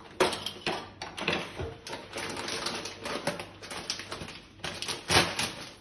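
Rummaging in a kitchen cutlery drawer, metal utensils clattering, then scissors cutting open a crinkly crisp packet. A run of clicks and rustles, with sharp knocks near the start and about five seconds in.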